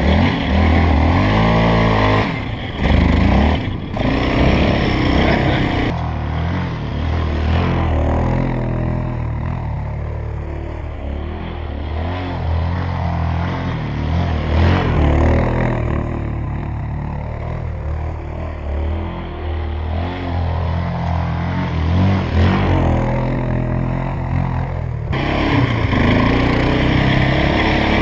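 Yamaha Raptor sport quad's engine revving up and down as it is ridden through sand, its pitch rising and falling with the throttle. The sound shifts abruptly twice, about six seconds in and a few seconds before the end.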